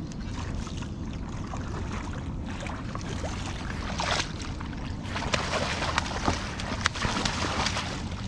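A hooked young channel catfish thrashing and splashing at the surface as it is brought to the landing net, over a steady low rumble. The splashing starts about four seconds in and comes in quick, sharp bursts toward the end.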